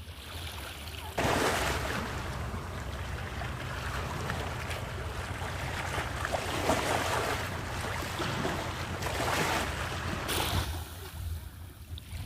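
Sea surf washing on the shore, mixed with wind on the microphone. It grows louder about a second in and drops back near the end.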